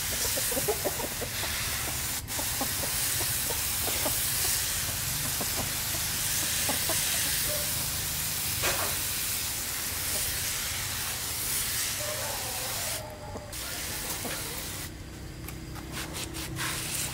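Hand-pump garden pressure sprayer misting water onto potting soil: a steady hiss that cuts out briefly twice near the end.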